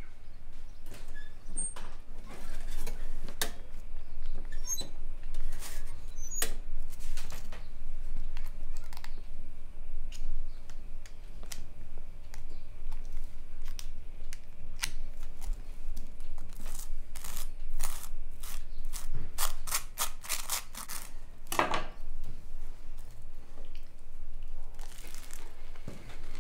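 Table knife scraping butter across crisp toast: a series of short, scratchy strokes, coming fastest and loudest about two-thirds of the way through.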